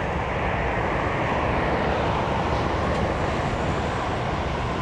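Scania articulated lorry hauling a container trailer drives past close by: diesel engine and tyre noise, swelling slightly as it passes.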